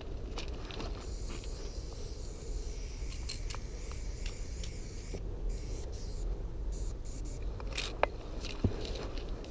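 Aerosol spray paint can hissing as paint goes onto a train's metal side: one long spray of several seconds, then shorter bursts, over a steady low rumble. Two sharp clicks near the end.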